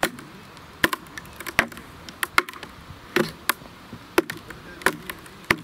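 Wooden mallet striking wooden wedges driven into a log to split a slab off the trunk. It gives about eight sharp blows, roughly one every 0.7 seconds.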